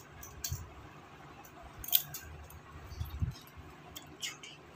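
Light clicks and clinks as a bunch of small plastic roses is handled and turned in the hand, over a soft low rumble of handling, with the sharpest click about two seconds in.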